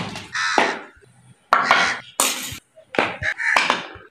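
Steel bowls and plates being set down and shifted on a concrete floor, clattering and clinking in a string of irregular knocks.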